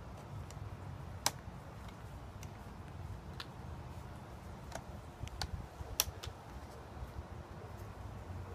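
Scattered sharp clicks and light knocks from the motorcycle backrest's metal arms and ratcheting handles being handled and adjusted, the two loudest about a second in and about six seconds in, over a faint low rumble.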